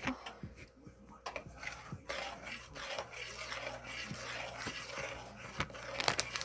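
Light handling noises: soft rubbing and scattered small clicks, with a faint steady hiss from about two seconds in.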